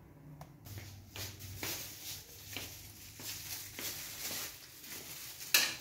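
Faint, scattered light taps and rustles of a metal spoon and hands working at a terracotta bowl of spiced kebab mince, with one sharper knock near the end.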